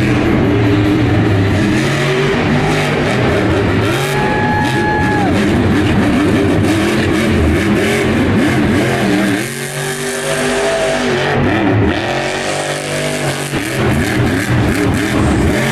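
Grave Digger monster truck's supercharged V8 engine revving hard as the truck drives and turns in the dirt, the pitch climbing and falling again and again. About nine and a half seconds in the engine briefly drops off, then comes back up.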